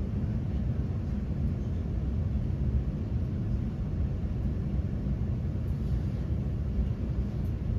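Steady low rumble heard inside the passenger saloon of a Class 350 Desiro electric multiple unit.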